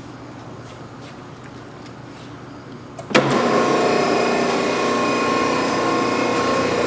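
Hydraulic pump of an Allsteel 20-ton CNC hydraulic press brake, which cuts in suddenly about three seconds in and then runs loud and steady with a whine made of several fixed tones.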